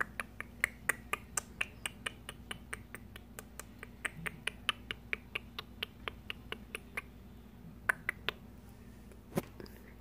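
Cockatiel's beak pecking at a wooden perch strewn with seed: a steady run of sharp clicks, about four a second, for some seven seconds, then a few louder single clicks near the end.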